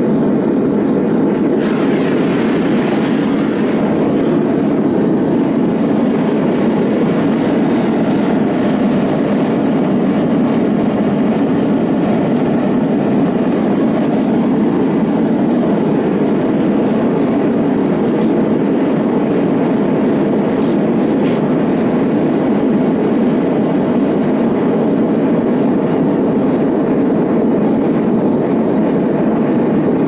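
Homemade propane burner firing into a small fire-brick furnace: a loud, steady roar of the propane flame. The hiss grows brighter for a couple of seconds near the start.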